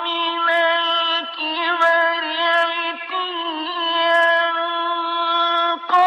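A high male voice reciting the Quran in the ornamented mujawwad style, holding long melodic notes with small ornaments and a few brief downward slides.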